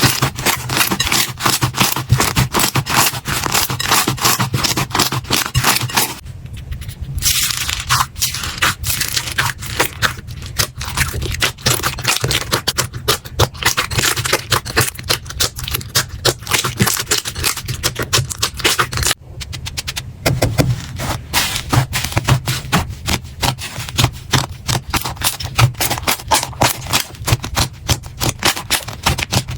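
Slime being pressed and worked by hand, giving off dense, fast crackling and popping clicks, with brief lulls about six and nineteen seconds in.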